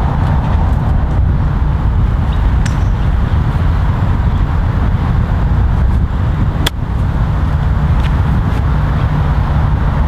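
A single crisp click of a golf club striking a range ball on a short pitch shot, about two-thirds of the way in, over a steady low outdoor rumble.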